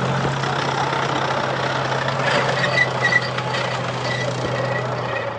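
A vehicle engine idling steadily under a constant noisy background. A faint high beeping comes and goes about halfway through.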